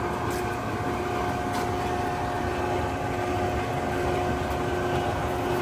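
Hydraulic pump unit of a 100-ton forging press running steadily, a constant high whine over a mechanical hum, with a few faint clicks.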